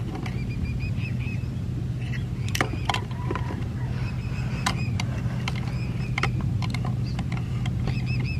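A small engine running steadily, a low even hum, while a bird repeatedly gives quick runs of short high chirps. There are a few sharp clicks along the way.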